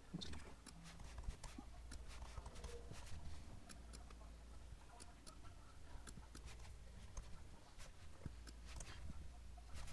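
Faint, irregular clicks and taps of hands working at a desk, with a louder knock near the end.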